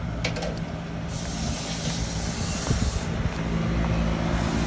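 Steady low machine drone, with a burst of hissing compressed air from about a second in that lasts roughly two seconds.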